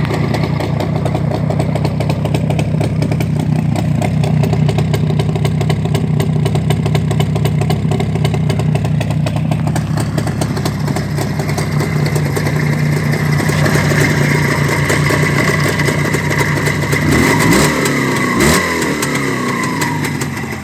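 Freshly repaired ČZ motorcycle two-stroke engine running steadily, then revved up and down near the end, with two sharp clicks.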